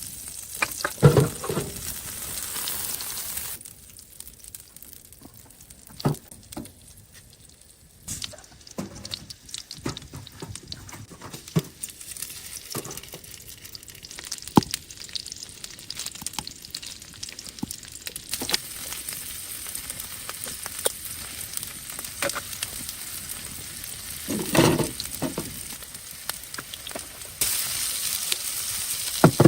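Food sizzling and frying in a pan, with the clicks, scrapes and occasional knocks of a utensil stirring it. The sizzle drops abruptly a few seconds in and comes back louder near the end.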